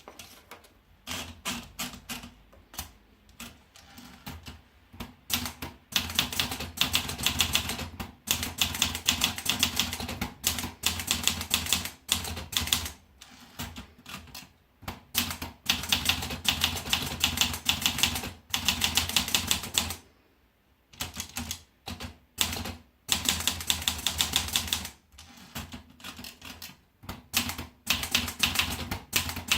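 Olivetti Lettera 32 manual portable typewriter being typed on: a few separate key strikes at first, then fast runs of keystrokes broken by short pauses.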